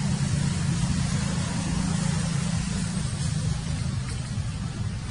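Steady low hum of an engine running, over an even hiss.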